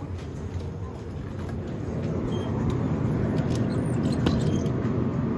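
Steady low rumble that grows louder over the first two seconds, with a few light clicks about three and a half to four seconds in as a bottle is taken from the shelf of a glass-door drinks cooler.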